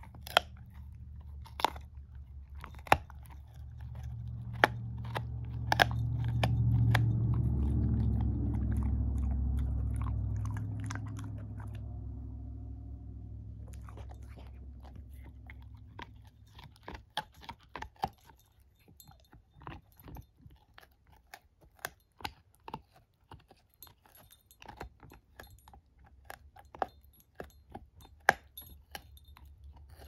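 Shepherd-mix puppy chewing a chew stick: wet chewing with sharp crunches and tooth clicks, coming several a second in the second half. A low rumble swells and fades during the first half.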